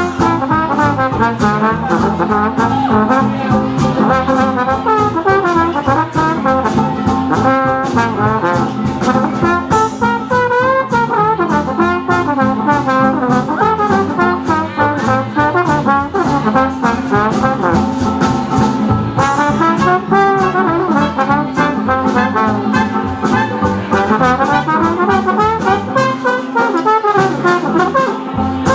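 Swing jazz band playing an instrumental break: trombone, trumpet and clarinet lines over double bass and a steady swing beat, with no vocal.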